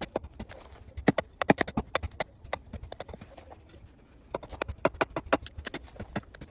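A bare axe head held in the hand chopping into a piece of wood: a run of sharp, irregular wooden knocks in two flurries with a short pause between.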